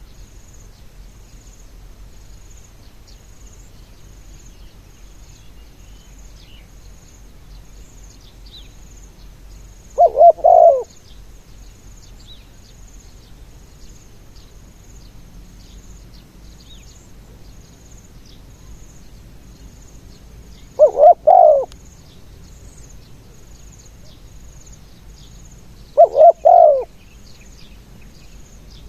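Spotted dove cooing three times, each call a short phrase of under a second spaced several seconds apart. Faint insects chirping steadily throughout.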